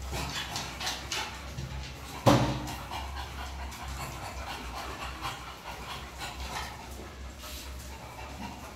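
Several dogs panting, with their claws clicking on a tile floor as they move about. A little over two seconds in comes one short, louder, sharp dog sound.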